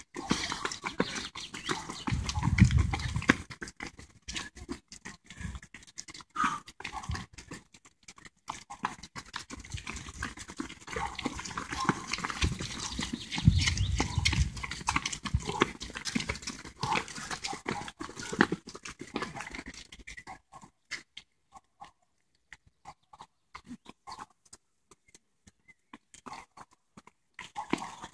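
Footsteps of many runners in running shoes on a brick-paved path as they pass close in groups. The footfalls thin out after about twenty seconds.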